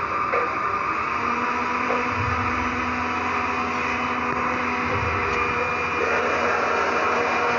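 A steady rushing noise with a low rumble that swells twice.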